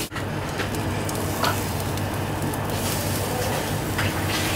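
Banana-and-egg pancake batter frying in olive oil in a skillet, a steady sizzle over a low hum. A light scrape about four seconds in as a spatula slides under the pancake to flip it.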